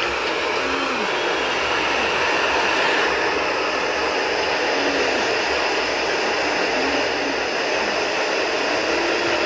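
Cooling fan of a handheld iTeraCare terahertz wand running steadily.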